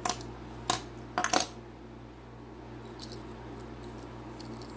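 Hot Wheels die-cast toy cars clinking against each other as they are handled in the palm: a few sharp metallic clicks in the first second and a half, then a couple of fainter ticks.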